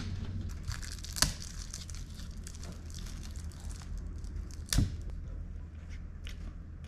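Crinkling and tearing with scattered small clicks, a sharp click about a second in and a loud thump just under five seconds in.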